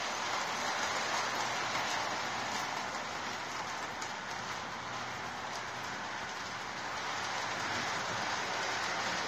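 Electric model train running around a loop of track, its wheels rolling with a steady rushing noise and a faint motor hum underneath.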